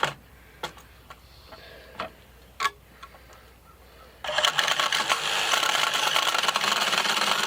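A few light metal knocks, then about four seconds in a loud, harsh, steady metalworking noise starts up as a tool works the sheet metal of a homemade smoker box.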